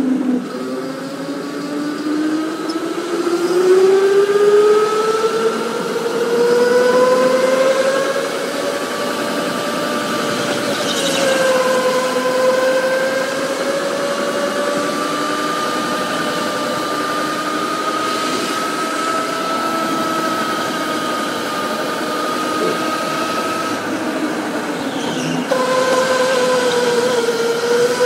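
Electric go-kart motor whining at speed, its pitch climbing over the first few seconds, wavering as the kart speeds up and slows, then dipping and rising again near the end.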